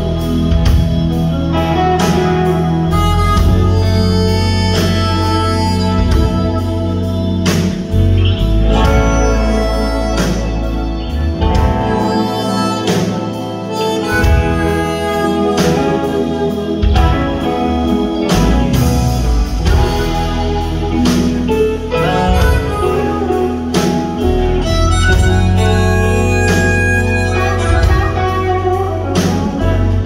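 Live electric blues band playing: a harmonica played into a vocal microphone leads over electric guitars, bass guitar and a drum kit keeping a steady beat.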